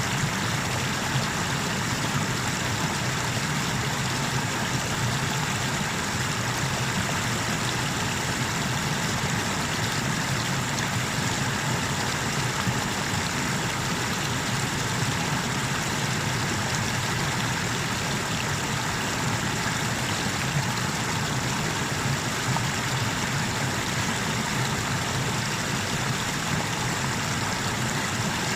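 River waterfall: water pouring over a cascade in a steady, even rush of noise that does not change.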